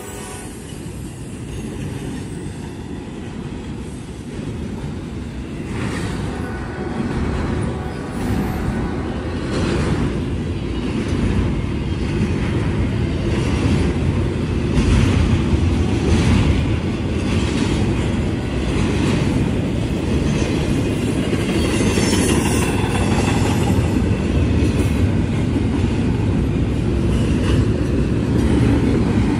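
Double-stack intermodal container train rolling past close by: a steady rumble of steel wheels on the rails, with irregular clacks as the wheels cross rail joints. It grows louder over the first dozen seconds and then holds.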